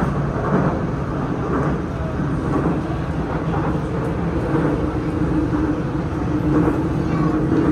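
Subway train running at speed: a steady rumble with a low, even hum.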